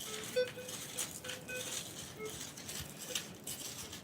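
Soil being scraped and sifted by hand while searching a dig hole, with scattered short scrapes and clicks and several faint, brief metal-detector beeps.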